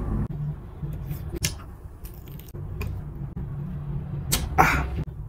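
Close-miked eating sounds: scattered soft clicks of a metal spoon and fork against a bowl of meatball soup, and one short breathy sound about four and a half seconds in, over a low steady hum.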